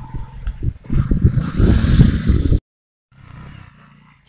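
Bajaj CT 125 motorcycle's single-cylinder engine running hard under throttle, loud and close to the microphone. It cuts off suddenly about two and a half seconds in, leaving only faint background noise after a short gap.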